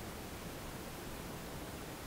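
Steady, even hiss of background noise, with no distinct sound from the hook and yarn standing out.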